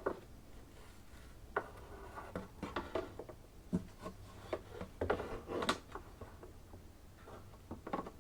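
Scattered light clicks, knocks and rubbing of a part being handled and fitted by hand, busiest about five to six seconds in.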